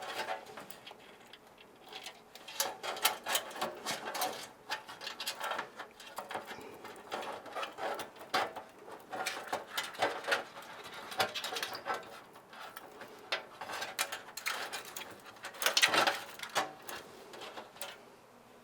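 Irregular clicks, taps and rattles of cables and parts being handled and fitted inside a PC case, with a few louder knocks now and then.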